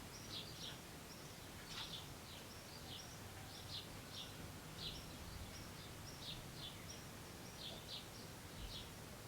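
Faint bird chirping: short high chirps repeating about twice a second, over a low background hum.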